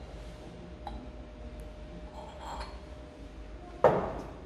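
Stemmed glass mugs handled on a wooden counter: a few faint clinks, then one loud glass knock with a short ring near the end.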